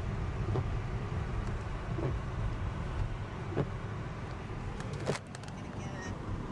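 Road noise inside a moving car's cabin: a steady low rumble with a faint knock about every second and a half, then a sharper click about five seconds in, after which the rumble eases slightly.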